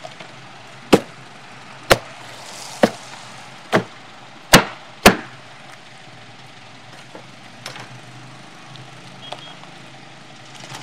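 Meat cleaver chopping through a whole roast pig's crackling skin and bone on a chopping block: six sharp strikes about a second apart, the last two the loudest, then the chopping stops.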